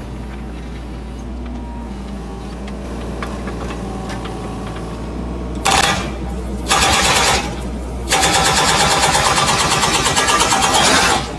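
Mini excavator's diesel engine running, then its hydraulic breaker hammering on concrete in three bursts of rapid, even blows: a brief one about six seconds in, another around seven seconds, and a long run from about eight seconds until near the end.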